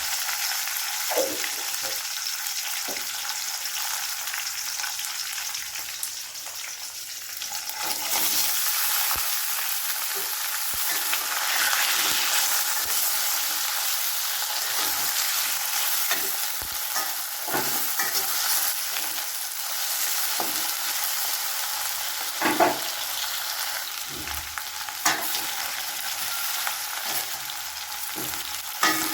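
Food sizzling steadily in hot oil in a pan while it is stirred, with the spatula knocking against the pan every so often.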